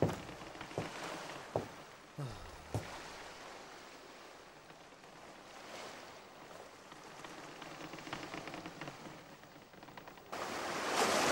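Soft, steady wash of the sea, with a few light knocks in the first three seconds. About ten seconds in, a louder rush of surging waves comes in suddenly.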